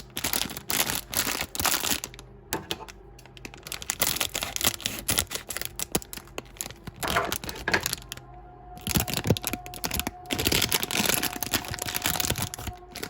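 Blind-box packaging being torn open and crinkled by hand as a toy figure is unwrapped: a rapid, irregular run of crackles and rustles, thinning out twice for a moment.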